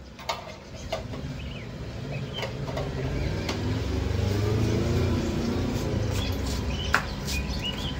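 Low rumble that swells to its loudest around the middle and then eases off, with a few sharp clicks and small high chirps over it.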